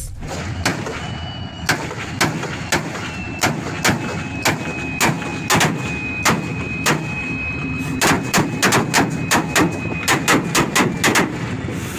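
Railway detonators (fog signals) going off one after another under a diesel locomotive's wheels, over the locomotive's running noise. The bangs are sharp and come about one or two a second at first, then in a fast run near the end, with a thin steady high whine through the middle. Each bang is a warning to the driver to stop when signals can't be seen.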